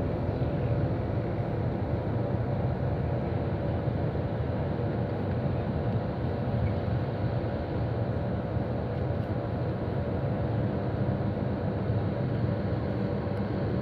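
City bus engine running and tyre and road noise, heard steadily from inside the cabin while the bus is moving, with a faint steady hum.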